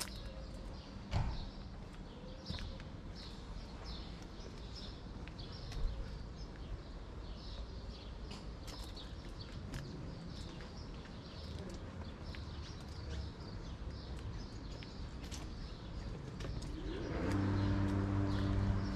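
Small birds chirping in short, repeated calls over a low outdoor street hum, with a couple of sharp knocks. Near the end a motor vehicle's engine comes up close and grows louder.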